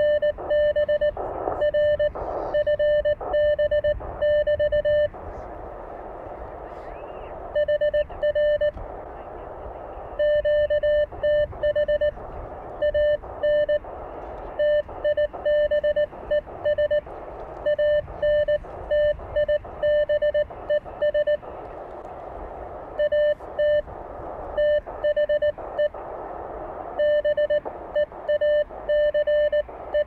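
Elecraft K1 transceiver's CW sidetone: a steady beep keyed on and off in dots and dashes as Morse code is sent with a paddle, with receiver hiss between the characters. The Morse spells out a reply with the station's location: "RR FB", "QTH Antibes", "at the beach /P", ending with BK.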